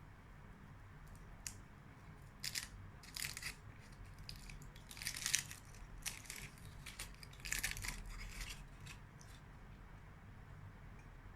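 Bonbon wrapper being crinkled and torn open in several short rustling bursts, loudest about halfway through.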